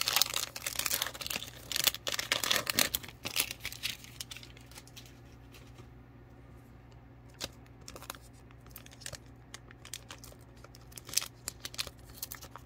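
Foil wrapper of a Panini Donruss Optic football card pack crinkling and tearing open. Dense crackling fills the first few seconds, then it settles to a few scattered crackles.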